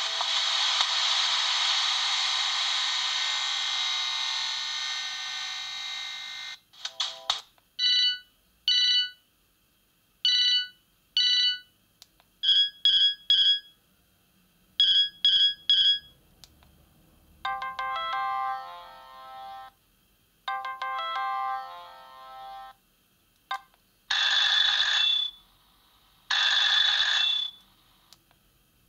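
Siemens M55 mobile phone's loudspeaker playing one ringtone after another. First comes a full polyphonic melody lasting about six seconds, then groups of short electronic beeps, then several brief melody snippets, each cut off after a second or two.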